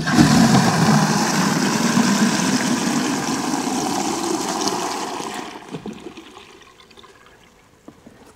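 Water gushing from the tap of a plastic IBC water tank into a plastic watering can. It starts at once, runs strong, then dies away between about five and seven seconds in.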